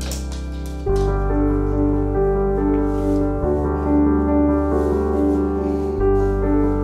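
Background music: a piano melody over held low chords that change about every two and a half seconds.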